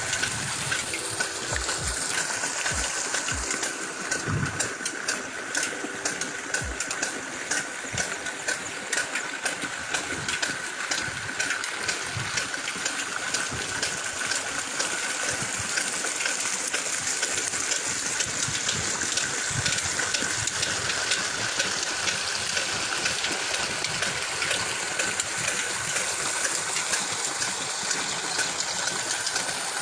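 Old diesel engine running steadily as it drives an irrigation water pump, with a rush of pumped water over a fast run of knocks.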